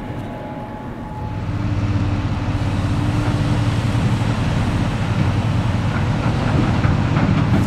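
Large diesel engine of a heavy earthmoving machine running under load, a deep steady rumble with a held whine above it, growing louder about a second and a half in.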